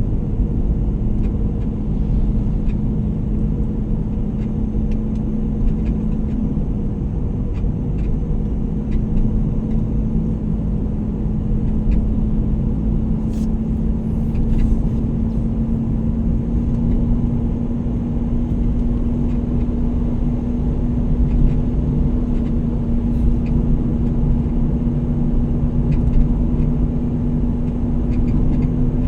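A car driving along the road: a steady low rumble of engine and road noise with a constant hum that rises very slowly in pitch as the vehicle gathers speed.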